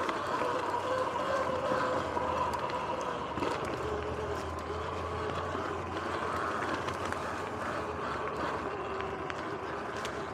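Sur-Ron X electric dirt bike riding along a dirt trail: a steady motor and chain whine that wavers and sags slightly in pitch with speed, over tyre noise, with scattered clicks and rattles from bumps in the trail.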